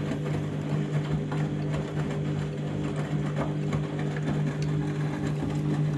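Washing machine running its rinse cycle: a steady motor hum with faint irregular knocks and water sloshing in the sudsy drum.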